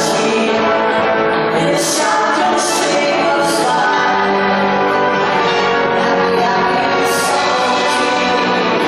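Live song: two women singing at microphones over electric guitars and a symphony orchestra, with the sung consonants hissing now and then.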